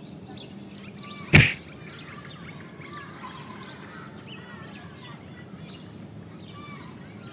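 Park ambience of small birds chirping over a steady hiss, with one loud, sudden hit about a second and a half in: a cartoon impact sound effect of a tennis ball striking someone.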